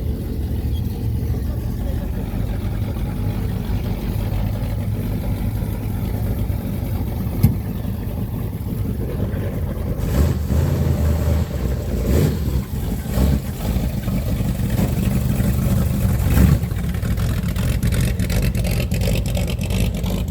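A car engine running steadily with a low note, getting fuller and uneven from about halfway through. There are a couple of sharp clicks.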